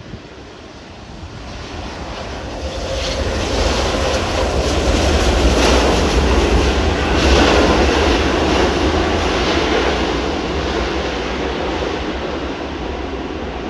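Boeing 777 jet engines at takeoff thrust as the airliner passes: a low rumble and broad rushing noise that grows louder, is loudest about halfway through, then slowly fades.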